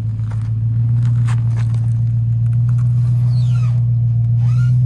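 The 4Runner's 4.7-litre V8 engine runs under load at steady, raised revs as the truck crawls over rock. It is a loud, low, even drone that builds over the first second. A few short squeaks and light clicks come in the second half.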